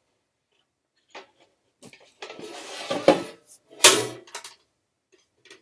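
Air fryer parts and packaging being handled: a few small clicks, a scraping, rustling stretch, then two sharp knocks about three and four seconds in, the second the louder.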